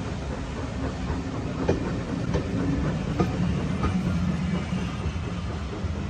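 A rail vehicle running along the track: a steady low rumble with sharp clicks every second or less as the wheels pass over rail joints.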